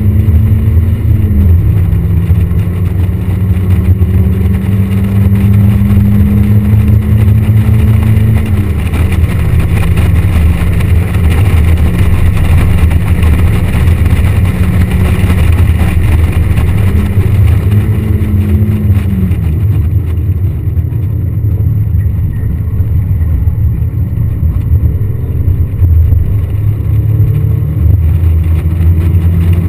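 Mazda Miata's four-cylinder engine running hard at track speed, heard from the open cockpit with wind rushing past. The engine note steps down about a second in, again near nine seconds and again near nineteen seconds, and climbs back in between.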